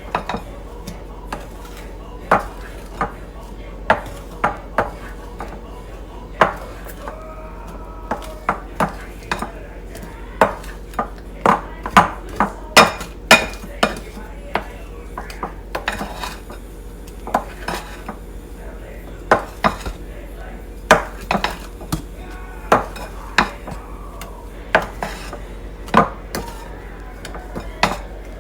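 A utensil knocking and scraping against a small mixing bowl while macaron batter is folded: irregular sharp clicks, roughly one to two a second.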